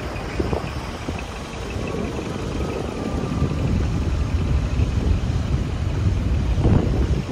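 Deep, uneven rumble of large diesel truck engines running at idle.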